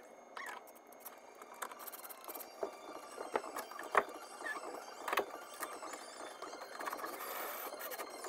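Scattered clicks and knocks with short squeaks from wooden bed rails and metal hardware being handled during bed-frame assembly, with a sharper knock about four seconds in.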